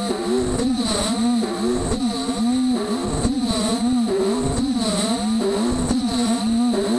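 Beaver HDZero CNC router milling an aluminium plate: the axis drive motors whine in a pitch that keeps rising and falling as the machine speeds up, slows and reverses, over a steady high whine.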